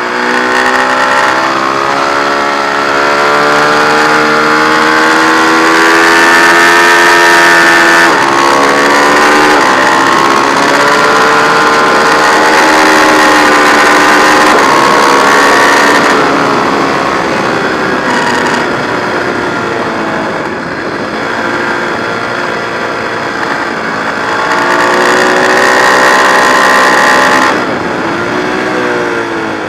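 Ducati 1098 sportbike's 1099 cc L-twin engine at full throttle on track. The revs climb, break at a gear change about eight seconds in and climb again, ease off for a stretch, rise once more and drop sharply near the end as the throttle is shut, over the rush of wind at speed.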